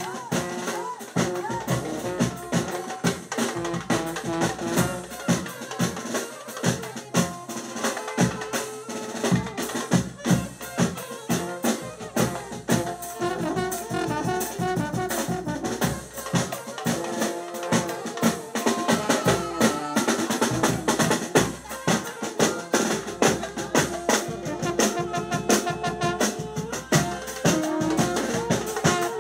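Street wedding band playing dance music with a saxophone and brass horns over a big double-headed bass drum beaten hard and fast.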